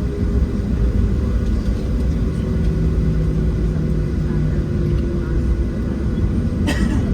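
Boeing 737-700 cabin noise from a window seat: the CFM56 jet engines give a steady low rumble and drone, with a faint steady hum over it. A single sharp click comes near the end.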